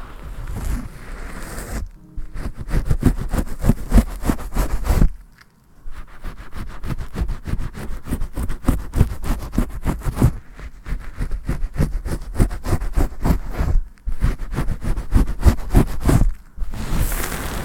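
Hair-washing ASMR: foam-lathered hands scrubbing and squishing against a microphone, a dense run of rapid crackling, rubbing strokes with a few short pauses.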